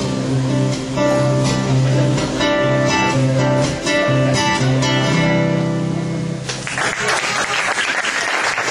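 Acoustic guitar playing the last phrase of a song and ending on a held chord. Audience applause breaks out about seven seconds in.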